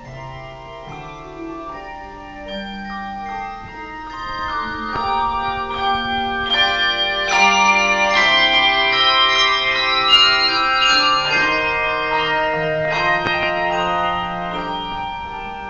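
Handbell choir ringing a piece on brass English handbells, many bell notes struck and ringing on together in chords. The playing grows louder about a third of the way in, then eases off near the end.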